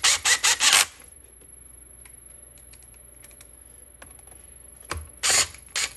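Quick runs of sharp clicking from a hand tool driving the bolts into a Stihl MS200T chainsaw's housing, in a cluster at the start and another near the end, with a few faint clicks between.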